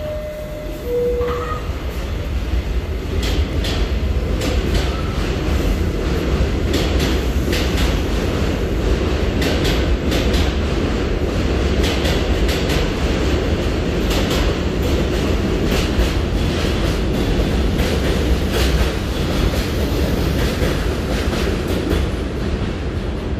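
R68A subway train pulling out of an elevated station. Two short falling tones sound first, then a loud steady rumble with its wheels clacking over rail joints as it gets under way and runs out.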